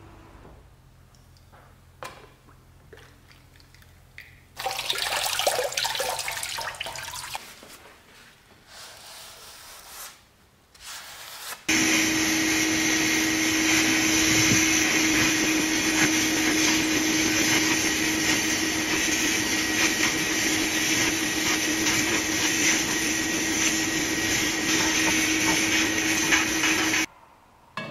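A few seconds of liquid splashing as the cast-iron iron is lifted from its rust-remover bath. About twelve seconds in, a sandblasting gun in a blast cabinet starts and runs for about fifteen seconds: a constant hiss of compressed air and abrasive with a steady hum under it, cutting off suddenly near the end.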